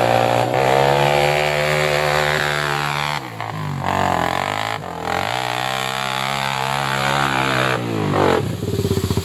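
Sport ATV (quad) engine revving hard as it is ridden through mud. The pitch drops about three seconds in, climbs again, and falls once more near the end as the throttle comes off.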